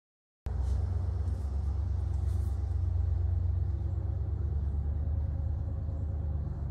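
Silence for about half a second, then a steady low outdoor rumble.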